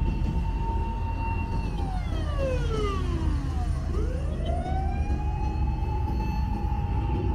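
Emergency vehicle siren in a slow wail: a held tone that falls away about two seconds in, sweeps back up about four seconds in and holds again, over a steady low rumble of street noise.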